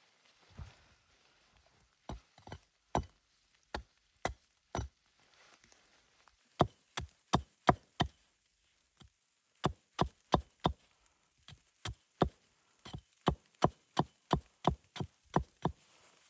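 Wood being chopped: sharp single blows in runs of about two to three a second, with short pauses between the runs.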